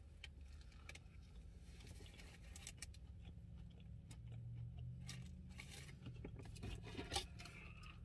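Faint chewing of a mouthful of crispy fried fish sandwich, with small scattered crunchy clicks, over a low steady hum.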